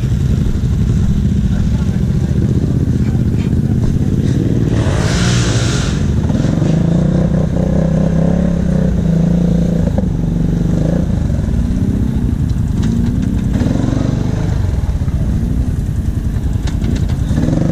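ATV engines idling steadily close by, with the pitch rising and falling now and then as they are revved. A brief rushing noise sounds about five seconds in.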